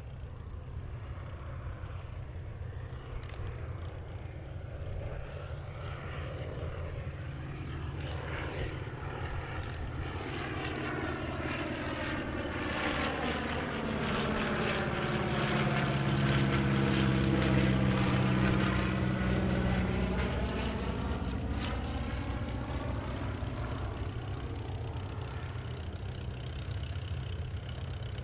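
Focke-Wulf Fw 44 J Stieglitz biplane's seven-cylinder Siemens-Halske Sh 14 radial engine running as the plane flies past overhead. It grows louder to a peak a little past halfway, then fades again.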